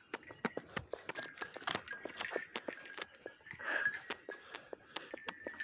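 Metal dog chain clinking and rattling in quick, irregular clicks as the chained dog gets up and moves, with a short animal call about four seconds in.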